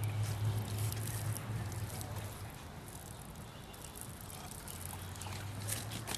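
Water pouring and trickling steadily, with a low hum underneath that drops away for a couple of seconds midway and then returns.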